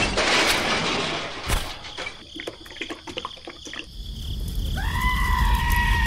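The noise of an explosion dying away, then a run of small crackles and clicks. About four seconds in, a low engine rumble starts, and a steady pitched tone rises in over it, holds for about a second and a half and falls away.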